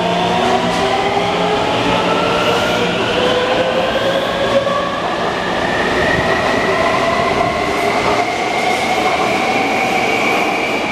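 Taipei Metro C321 refurbished train's traction inverter whining as it accelerates, several tones climbing steadily in pitch over the rumble of the wheels on the rails. On this train the inverter noise and out-of-round wheels are taken for faults.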